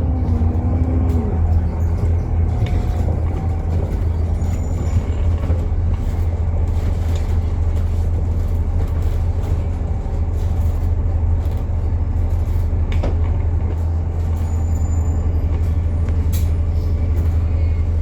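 Alexander Dennis Enviro 400 MMC double-decker bus on the move, with a really loud, steady low drone from its axle, along with scattered rattles and clicks.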